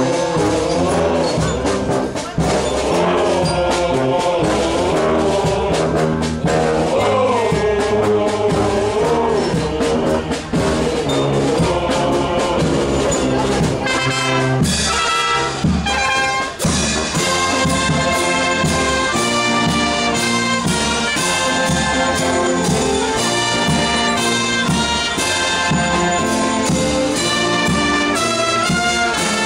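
Symphonic wind band playing, with brass and woodwinds together. A wavering melody line carries the first half, and after about fifteen seconds the music turns to a run of short, rhythmic repeated notes.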